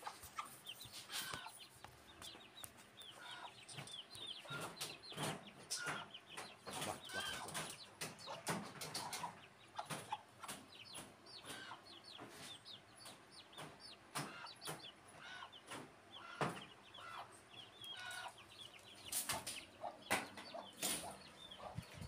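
Young parrot-beak aseel chicks peeping and clucking, a steady stream of short high calls, with scattered sharp clicks.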